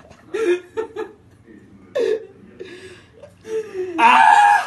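A person's short, stifled vocal sounds in several brief bursts, with a louder outburst near the end.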